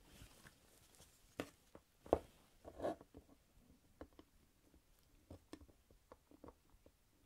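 Faint scattered clicks and taps of metal calipers being slid and set against a wooden block, the loudest about two seconds in.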